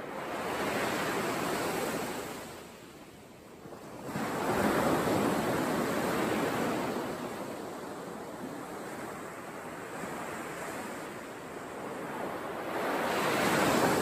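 Sea surf breaking and washing up the shore in swells. The rush rises and falls away three times: within the first second, a louder surge about four seconds in, and again near the end.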